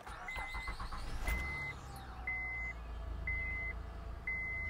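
2007 Honda Odyssey's V6 cranking briefly and catching about a second in, then idling steadily, over a dashboard warning chime beeping about once a second. The engine starts on a temporarily bridged main battery fuse, a sign the bridge is carrying the starting current.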